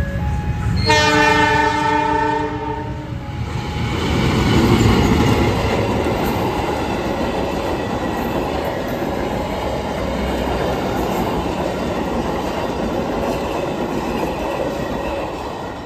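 Passenger train passing through the station without stopping: its locomotive gives one long horn blast about a second in, then the coaches rumble and clatter past over the level crossing. A two-tone level-crossing alarm rings faintly behind it.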